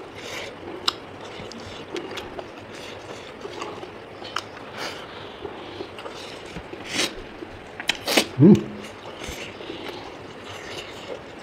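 A man eating: chewing, with scattered short mouth clicks and smacks. About eight seconds in comes a louder short breathy, voiced noise.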